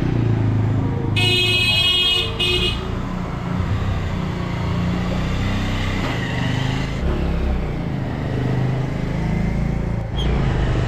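Motorcycle engines running as several bikes pull away and ride past one after another. About a second in, a horn honks twice, a long blast then a short one.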